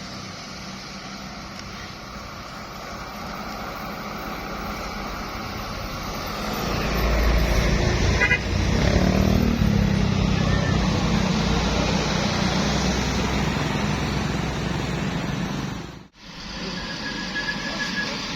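A bus passing close on the road, its engine growing louder to a peak a few seconds in and then easing, with a few short horn toots. The sound drops out abruptly near the end, and another passing vehicle with a brief toot follows.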